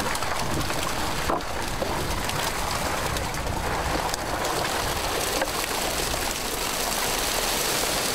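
Steady splashing and dripping of water as a wet fishing net full of fish is hauled over a boat's side, with a few faint knocks.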